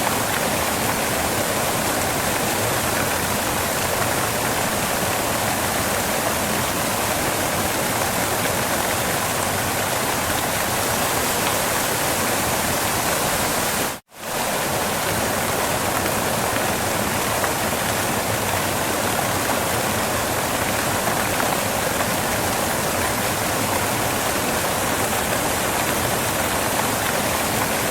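Waterfall pouring in a steady, dense rush of water. It drops out abruptly for a split second about halfway through, then resumes unchanged.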